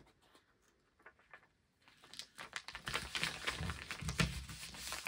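Hands rubbing and pressing a sheet of paper down over a gel plate and the dried gypsophila stems under it: dry paper rustling and crinkling, starting about two seconds in.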